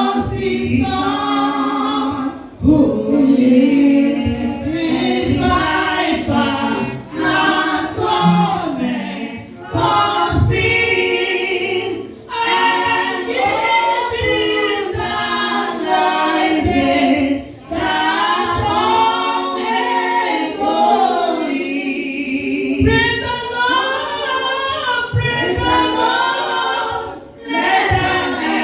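Choir singing a gospel song, many voices together in phrases with short breaks between them.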